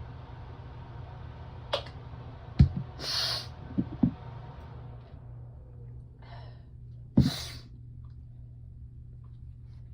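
A person sneezing twice, about two and a half and seven seconds in, each sneeze a sharp burst trailing into a short hiss; the sneezes are set off by the chill after a shower. A steady low hum runs underneath, and a background hiss stops about halfway.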